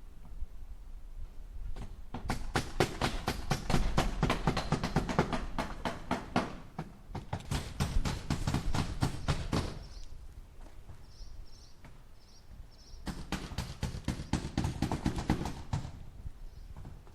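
Hammer rapidly striking a nail into wood, about five blows a second. The blows come in three runs separated by short pauses.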